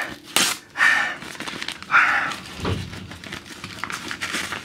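A paper mailer envelope being torn open and handled: irregular paper rustling and crinkling with small sharp clicks, a louder tear-like rip about half a second in.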